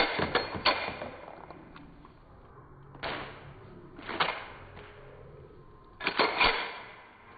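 Pistol being worked by hand to clear a double feed: sharp metallic clicks and clacks, a quick cluster in the first second, then three short bursts about 3, 4 and 6 seconds in, typical of the slide being locked and racked and the magazine being stripped and seated.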